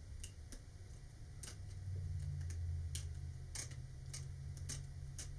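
About a dozen sharp, irregular clicks and ticks from a hobby knife blade working under the thin plastic vacuform wrap on a model rocket body tube, prying the glued wrap up, over a low steady hum.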